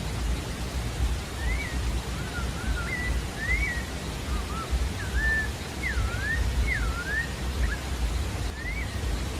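Pale-breasted thrush (sabiá-da-várzea) singing: a run of clear, slurred whistles that rise and fall, over a steady hiss with a low rumble.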